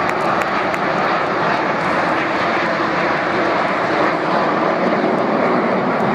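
Military aircraft flying over, a steady rush of engine noise that holds at one level.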